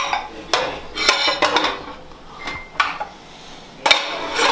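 A series of sharp clinks and clatters of hard objects knocking together, about five strikes, some ringing briefly.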